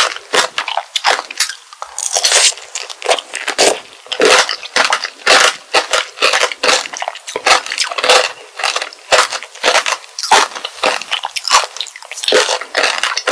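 Biting and chewing strawberry tanghulu: the hard, glassy sugar shell cracks and crunches between the teeth in many quick, irregular crackles, with chewing of the strawberry underneath.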